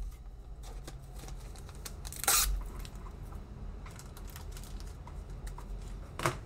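Trading cards and plastic card holders being handled on a tabletop: scattered light clicks, a short rustle about two seconds in, and a couple of sharper taps near the end.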